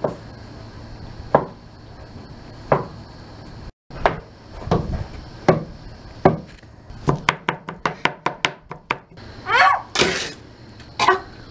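Knife chopping on a cutting board over a wooden table: sharp single strikes spaced more than a second apart, then rapid chopping at about five strokes a second.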